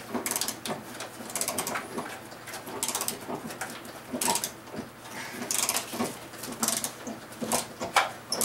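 Hand ratchet wrench clicking in short, irregular bursts as bolts are worked loose during a vehicle teardown.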